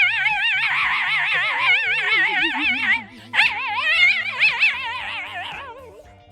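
Dog howling in long, wavering notes: one howl breaks off about three seconds in, and a second follows that slides down in pitch and fades out.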